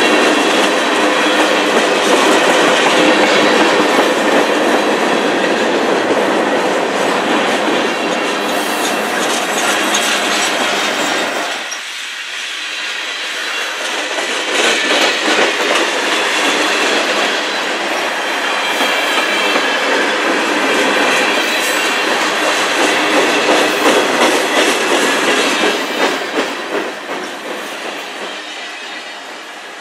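Freight cars of a CN manifest train rolling past close by: a steady rumble and rattle of steel wheels on rail, with the clickety-clack of wheels over rail joints. The low rumble thins briefly about twelve seconds in, and the sound eases off near the end.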